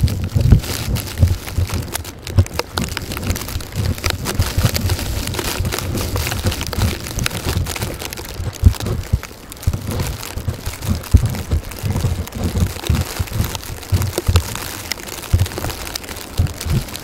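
Blizzard wind gusting over the microphone: an uneven low rumble that swells and drops, with crackling throughout.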